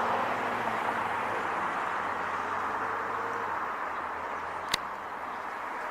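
Road traffic: a passing vehicle's engine and tyre noise slowly fading away, with its low hum dropping out about halfway through. A single sharp click near the end.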